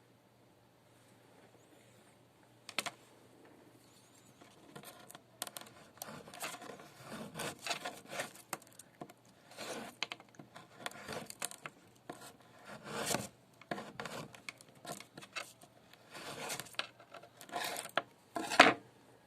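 Hand work with small parts and wire on a workbench: irregular rubbing, scraping and rustling, with a sharp click about three seconds in and a louder click near the end.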